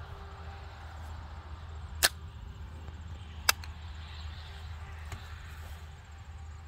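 Two sharp cracks about a second and a half apart, then a fainter click, over a steady low wind rumble.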